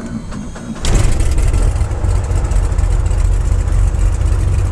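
Cessna 210 Centurion's six-cylinder engine being started from inside the cockpit: a brief crank on the starter, then it catches about a second in and settles into a loud, steady run.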